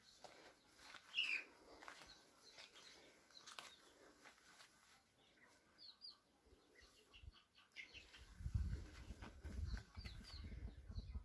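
Small birds chirping with short, high, falling calls, faint and scattered. A low rumble comes in for the last few seconds.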